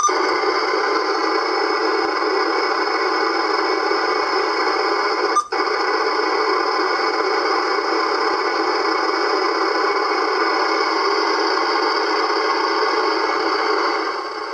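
Uniden Bearcat 980SSB CB radio giving out steady static hiss from its speaker, with no station heard. About five and a half seconds in, a click and a brief dropout break the hiss as the radio is switched.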